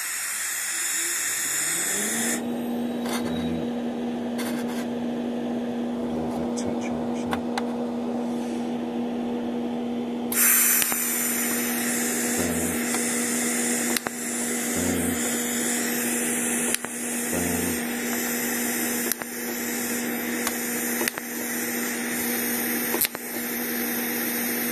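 TIG welding set tack-welding thin stainless steel: a series of short arc bursts, one every second or two in the second half, over a steady hiss. A steady hum comes up about two seconds in and holds.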